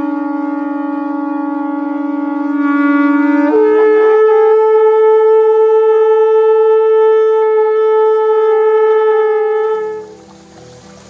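Shofar blown in one long held blast. A lower note steps up to a higher one about three and a half seconds in, and the higher note is held steadily until it cuts off near the end.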